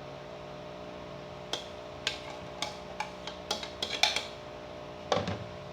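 Irregular light clicks and taps of a kitchen utensil against a bowl and container while mango toppings are spooned on, starting about a second and a half in, with a louder clatter near the end. A steady low hum runs underneath.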